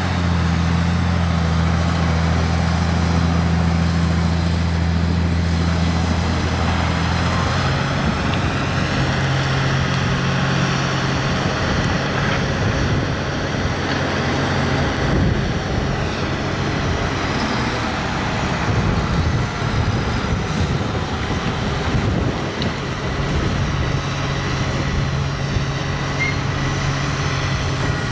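Diesel engine of a Komatsu PC350LC long-reach excavator running while it works its hydraulics to dig soil. The engine note is steady at first, then from about seven seconds in goes uneven, rising and falling with the work.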